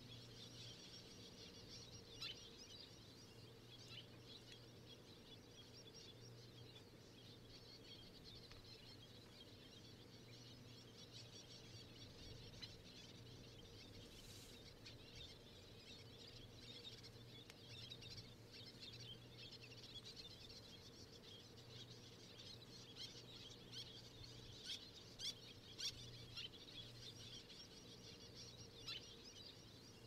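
Faint outdoor ambience: many distant birds chirping continuously over a low steady hum, with a few brief sharper ticks near the end.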